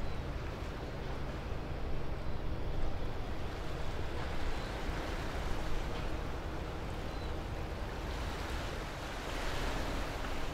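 Harbour water washing, with a low steady drone from a passing cargo ship under way, its bow pushing a wave. The rush of water grows a little stronger near the end.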